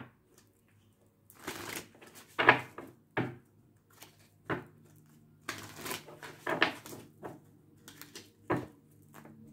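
A deck of oracle cards being shuffled by hand: irregular bursts of rustling and flicking cards, the loudest about two and a half seconds in and around six seconds in.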